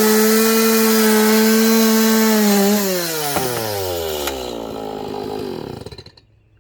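Chainsaw engine running at full throttle through a cedar log, holding a steady high note. About three seconds in, the throttle is released and the engine pitch falls steadily as it winds down, and it stops near the end.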